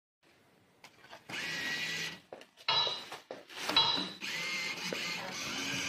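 CIRSA 'La Máquina del Tiempo' slot machine playing its electronic sound effects. A held tone over a buzzing hiss is followed by two sharp chiming hits around the middle, then the buzzing tone comes back steadily.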